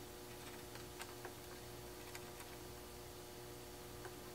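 Faint steady electrical hum with a few light, irregular clicks of meter probes being placed on the power transformer's terminals.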